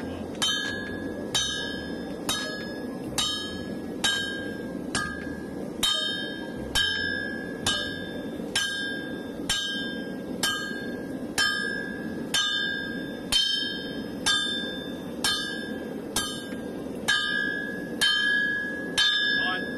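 Sledgehammer striking hot leaf spring steel on an anvil to draw it out, in a steady rhythm of about one blow a second, each blow ringing bright and metallic.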